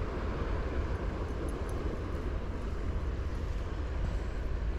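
Steady wind buffeting the microphone: a constant low rumble with an even hiss above it.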